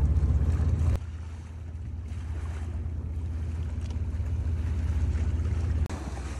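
Boat engine running with a steady low rumble, under wind and sea-water noise. The level drops abruptly about a second in and dips sharply again near the end.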